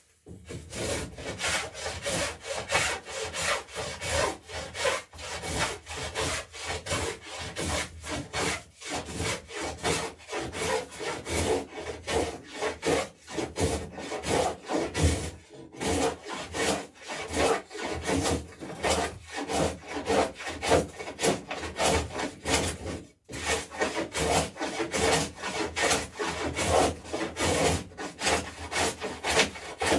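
A hand tool working a wooden plank edge in a quick, steady run of strokes: the garboard plank being beveled. It stops briefly a little after twenty seconds, then carries on.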